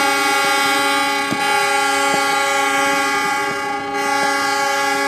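Several diesel locomotive air horns sounding together in one steady, held chord, with a few sharp pops over it.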